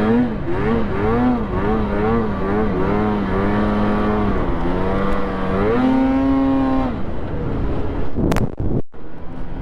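Polaris SKS 146 snowmobile engine running while riding along a snow trail, its pitch rising and falling again and again with the throttle, then holding higher and steady for about a second before dropping back. A short sharp noise comes near the end.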